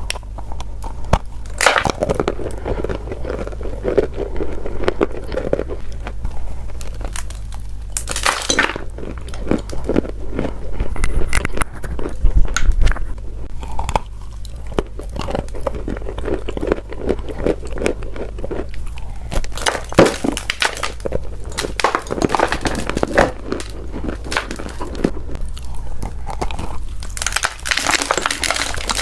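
Chalk being crunched: a dense run of crisp cracks and crumbling crackles, with louder clusters of crunches every few seconds over a steady low hum.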